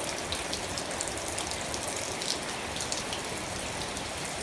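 Tropical rain falling steadily: a dense, even hiss with many separate drops ticking on surfaces.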